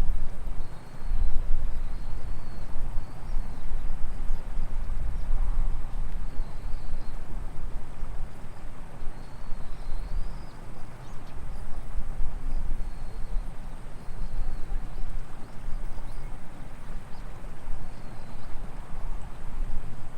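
Outdoor ambience dominated by an uneven low rumble of wind on the microphone, with faint high chirps now and then and a thin steady high tone.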